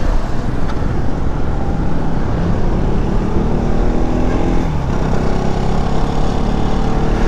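Motorcycle engine running under way, half-buried in heavy wind rush on the riding camera's microphone. The engine pitch dips briefly around the middle and then rises again.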